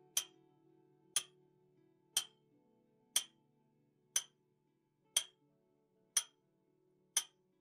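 Countdown-timer tick sound effect: a sharp tick exactly once a second, eight in all, over faint background music.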